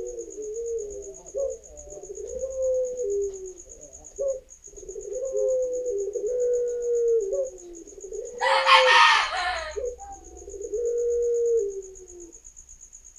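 Young Barbary doves (puter pelung) cooing over and over in low, wavering phrases as they practise their coo. A steady high pulsing insect trill runs behind them, and a loud harsh noisy burst about eight and a half seconds in is the loudest moment.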